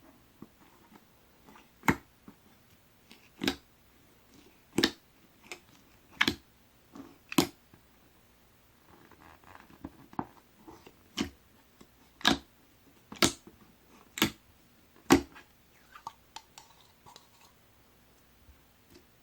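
Clear slime with pearl powder and glitter being pressed and stretched by hand, giving about ten sharp pops as trapped air bursts, roughly one a second, with soft squishing between them in the middle.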